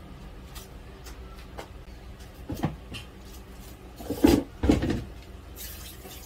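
A few light clicks, a sharper knock, then two loud dull knocks about half a second apart, over a low steady hum.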